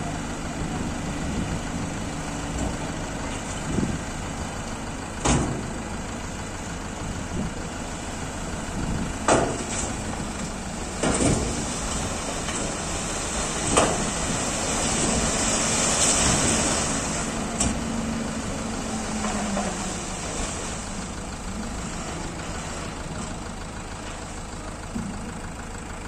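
Dump truck's diesel engine running as the hydraulic hoist raises the tipper body, with several sharp knocks. A rushing hiss swells in the middle as the load of soil and rocks slides out of the tipped body.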